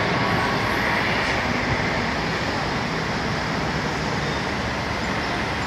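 Steady road-traffic noise, an even rushing hiss with no distinct passes or other events.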